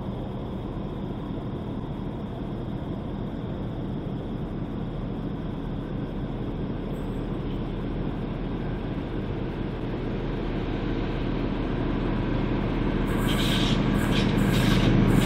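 NSW TrainLink XPT diesel passenger train approaching, its running noise growing steadily louder, with a high hiss coming in about two seconds before the end.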